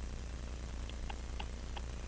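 Steady low electrical hum, with a few faint, light metallic clicks in the second half, from small tools handling the pocket-watch movement as the balance is fitted.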